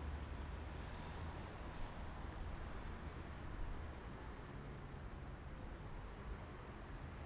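Low, steady rumble of a car's engine and tyres driving slowly in city traffic, heard from inside the cabin.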